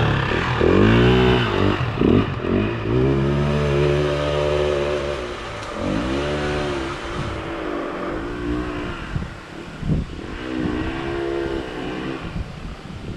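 Vehicle engine revved up and down again and again. Each rev's pitch rises and falls back, with one longer, steadier rev a few seconds in.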